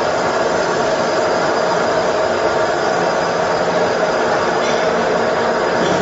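Multi-blade rip saw running steadily, its main motor and saw spindles up to speed with the feed started.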